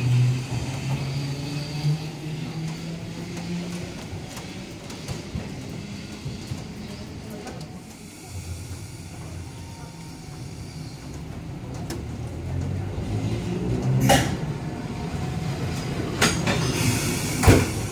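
Randen trams running: an electric tram's low motor hum falls away as it pulls out. After a quieter stretch, a tram rolls in close past the platform, with sharp wheel clacks over rail joints in the last few seconds, the loudest near the end.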